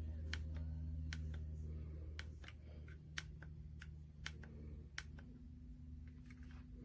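Electric fireplace heater running: a steady low fan hum with irregular sharp clicks, about one or two a second.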